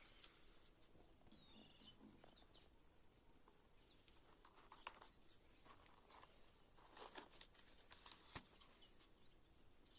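Near silence: a few faint scattered clicks, and a brief faint bird chirp about a second and a half in.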